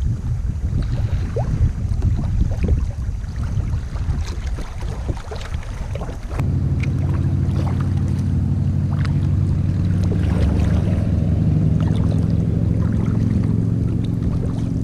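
Wind buffeting a kayak-mounted camera's microphone over water, with small splashes. About six seconds in it gives way abruptly to a steady, even low drone that holds to the end.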